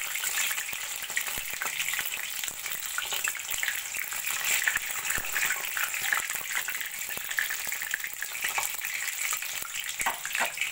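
Gram-flour-battered green chilli pakoras deep-frying in hot oil in a kadai: a steady sizzle with dense crackling. A metal spatula gives occasional clicks and scrapes against the pan as the fritters are turned.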